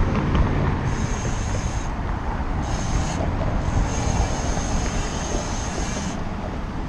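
Riding a bicycle: wind rushing over the microphone and tyres rolling on pavement, with a thin high buzz that stops and starts several times.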